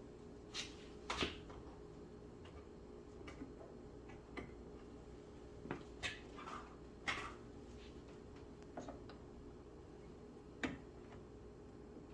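Scattered light clicks and knocks, about seven in all, from handling the BMW X6 rear-door lock mechanism and its linkage, separated by quiet stretches.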